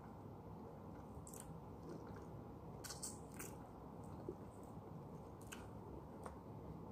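Faint chewing and biting on raw lemon segments, with a few short wet mouth clicks, the strongest cluster about three seconds in.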